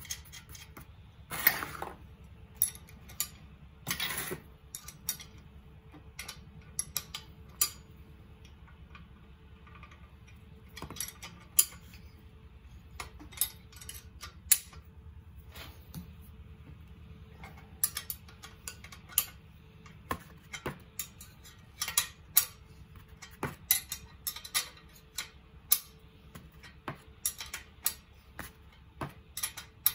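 Steel wrenches clicking and clinking against nuts, bolts and a square steel tube as two nuts are tightened by hand, in irregular sharp ticks with a couple of short scrapes near the start.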